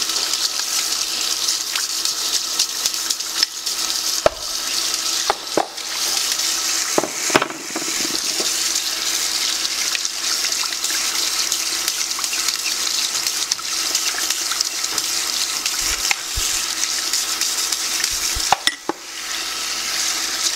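Kitchen tap running into a sink as the stainless steel twin gears of an Angel juicer are scrubbed with a brush under the stream. A few sharp clicks of metal parts knock against each other, about four seconds in, twice more soon after, and once near the end.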